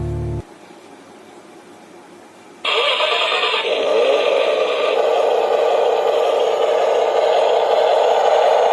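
Music stops shortly in. A couple of seconds later a toy remote-control dump truck's small electric motor and gears start suddenly and keep running with a steady whirring rattle.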